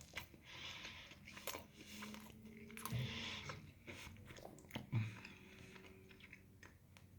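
A person chewing a big mouthful of burger, with faint wet mouth noises coming every second or so.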